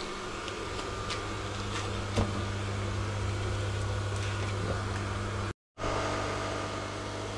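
Steady low electric hum of aquarium air pumps driving sponge filters in the fish tanks, with a few faint clicks. The sound drops out for a moment about five and a half seconds in.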